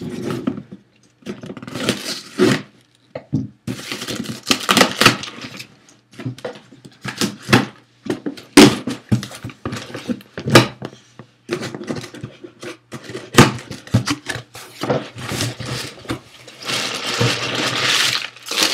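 Cardboard shipping box being opened by hand: irregular knocks, scrapes and tearing of tape and cardboard, then a longer stretch of crumpled paper packing rustling near the end.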